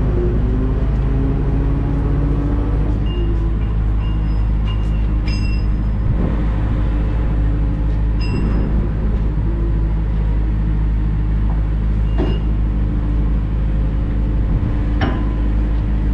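Fishing boat's diesel engine running with a steady low drone, its pitch rising a little in the first few seconds. A few short, higher-pitched sounds come over it.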